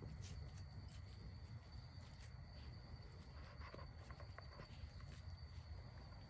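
Faint steady chirring of crickets, with scattered faint clicks and rustles close by.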